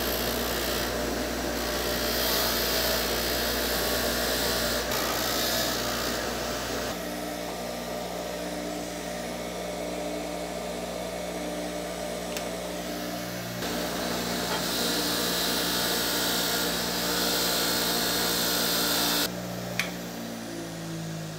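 Bench grinder running, its wire wheel scratching rust and scale off a steel ball-peen hammer head in several separate passes, with the motor's steady hum between them.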